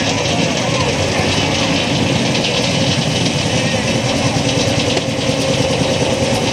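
Belt-driven sawmill running off a Fowler steam traction engine, a loud, steady machinery sound that holds even throughout.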